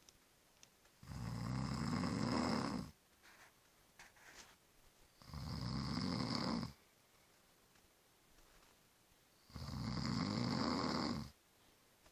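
A sleeping person snoring: three long, loud snores about four seconds apart.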